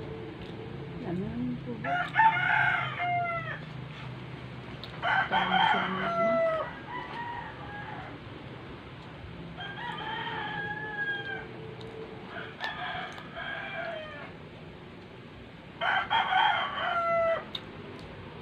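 Roosters crowing, five long crows in a row, each over a second long and dropping in pitch at the end.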